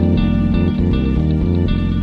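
Background music led by plucked guitar, with a steady pulse and changing chords.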